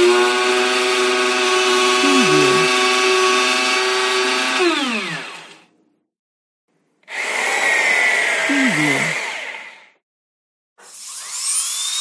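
Power drill boring into wood, in three separate takes. The first is a steady high motor whine that winds down about five seconds in. After a short gap comes a rougher, noisier burst of about three seconds. After another gap, near the end, a third run starts with the whine rising as the drill spins up.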